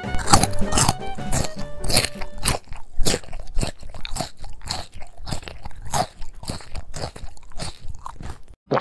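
Crunchy chewing: quick, repeated crisp crunches of a mouthful of raw shredded vegetable being bitten and chewed, several a second, ending in one last crunch before it cuts off. Background music fades out in the first second or so.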